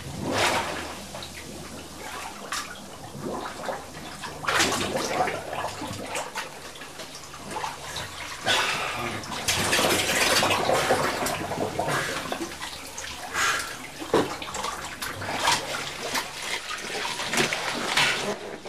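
Water splashing and sloshing around a cave diver as he moves through a flooded rock cleft, in irregular surges that are loudest around the middle.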